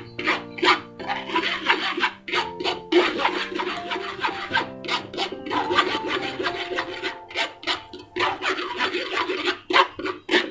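A spoon scraping and pressing blended date pulp through a metal mesh strainer in quick, repeated rasping strokes. Background music plays underneath.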